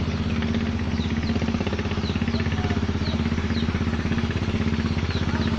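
Small boat engine running steadily at a constant speed with a fast, even pulse. A few faint short high chirps sound over it.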